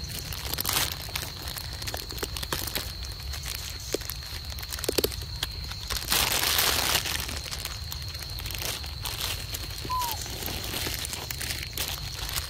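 Crinkling and rustling with scattered clicks, over a steady thin high tone and a low rumble. There is a louder stretch of rustling about six seconds in and a single short chirp about ten seconds in.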